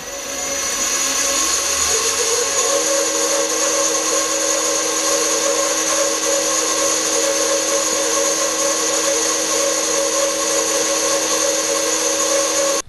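Benchtop pillar drill running, its small bit drilling a hole into a 10 mm aluminium bar clamped in a machine vice. The motor runs up over the first couple of seconds into a steady hum with a high whine, and stops suddenly near the end.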